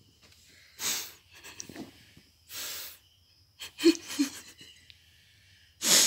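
Several short breathy bursts of stifled laughter and whispering close to the microphone, a cluster of whispered giggles a little before the middle and another burst near the end.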